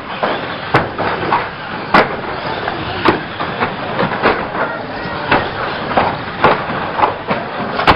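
Banger-racing cars running and colliding: a steady engine din broken by about a dozen sharp, irregular metal crashes and bangs.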